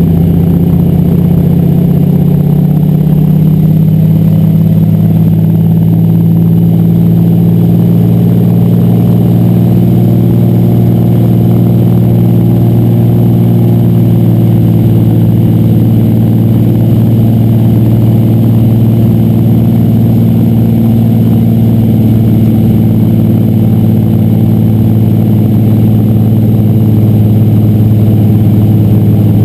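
Floatplane's piston engine and propeller heard from inside the cockpit at high power for the take-off run, a loud, steady drone whose pitch shifts slightly a few seconds in and then holds.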